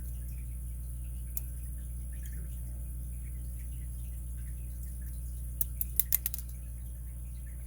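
Small metal clicks from handling the opened Master padlock's core and parts: a single faint tick, then a quick run of sharp clicks about six seconds in, over a steady low hum.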